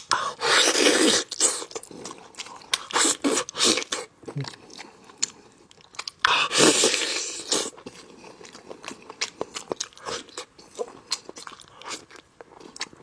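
Close-miked eating of spicy braised lamb on the bone: wet chewing and biting with many small clicks, and two louder, longer noisy stretches, one right at the start and one about halfway through.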